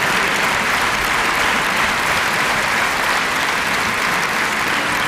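A large concert audience applauding, the clapping steady and even throughout.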